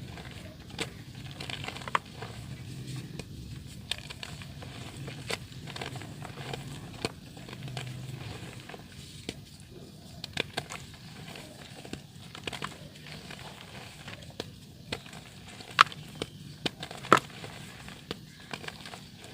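Soft dirt crumbling in water: scattered crackles and small crumbling clicks throughout, with two louder snaps near the end.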